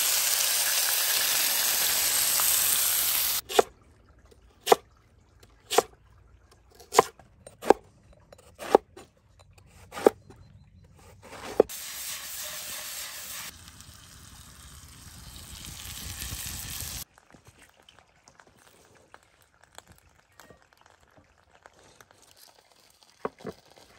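Meat frying in hot oil in a pan, sizzling loudly, cut off sharply about three seconds in. It is followed by about eight sharp knocks roughly a second apart, then a quieter hiss that swells and stops abruptly, leaving near quiet with faint ticks.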